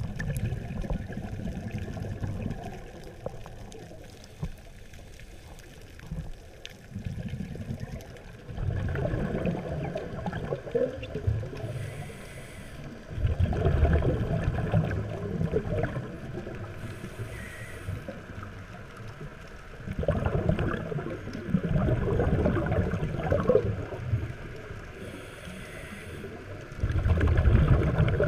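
Scuba diver's exhaled bubbles from the regulator gurgling and rumbling underwater, in bursts every few seconds with quieter inhalation gaps between.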